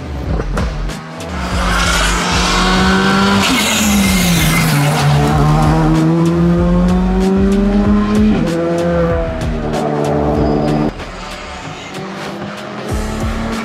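Škoda Fabia rally car's turbocharged four-cylinder engine driven hard, its pitch rising and falling through the gears with sudden drops at the shifts and many crackling pops. A short hissing burst comes about four seconds in.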